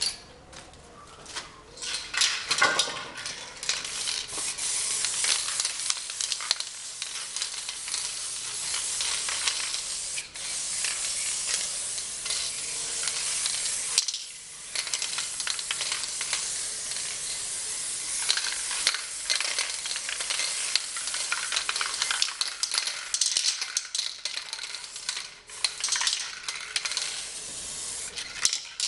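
Aerosol spray-paint cans hissing as paint is sprayed onto a car bonnet, in long near-continuous bursts that start about two seconds in, with a brief break about halfway.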